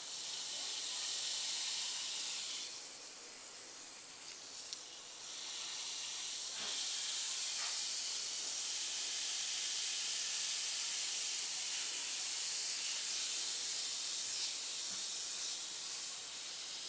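A small homemade baking-soda and citric-acid bath bomb fizzing as it dissolves in a bowl of water: a steady high hiss of bubbles that eases off briefly about three seconds in, then comes back louder.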